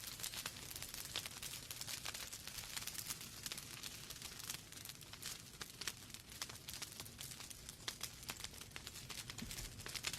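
Wood fire in a fireplace crackling: dense, irregular small pops and snaps from burning logs over a soft, steady hiss.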